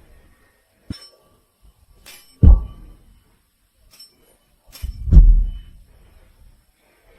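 A series of sharp knocks and clinks, with two heavy thuds that boom and die away, about two and a half and five seconds in.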